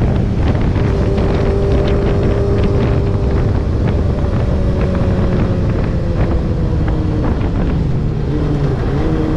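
Yamaha XJR400 inline-four running through a straight-pipe exhaust while riding. The engine note holds, then falls slowly as the bike eases off, and dips and picks up again near the end. Wind buffets the microphone throughout.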